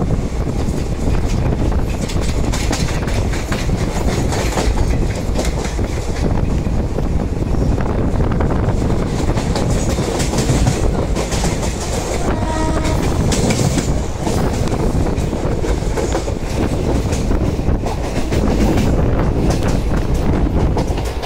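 Moving Indian express passenger train heard from a coach window: a steady rumble with wheels clattering over rail joints and points. A brief train horn sounds a little past halfway through.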